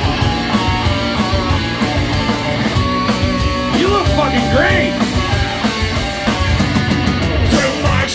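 Live rock band playing loudly: electric guitar and drums at a steady beat, with a singer's voice coming in around the middle.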